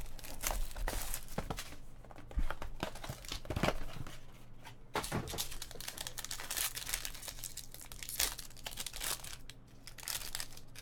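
Trading card pack wrappers being torn open and crinkled by hand, a run of irregular rips and rustles.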